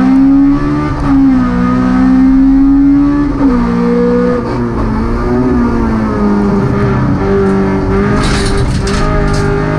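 Race-prepared Honda Civic's 1.6-litre four-cylinder engine heard from inside the cabin, held at high revs, its pitch dipping briefly twice and climbing again. Near the end a hiss of tyres scrubbing comes in as the car threads through the cones.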